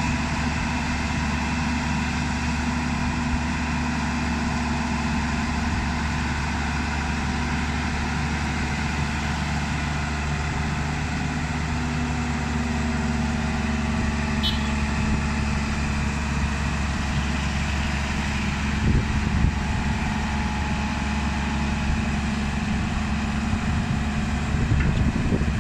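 Diesel engine of a JCB JS205 tracked excavator running at a steady pitch as the machine crawls and slews on the back of a flatbed truck. A brief tick about midway.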